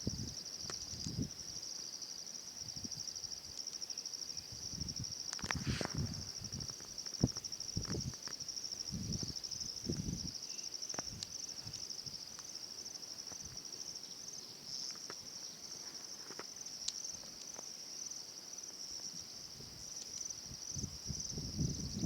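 Insects trilling: a steady, high-pitched pulsing drone that runs without a break, over scattered low rustles and knocks, with one sharper knock about seven seconds in.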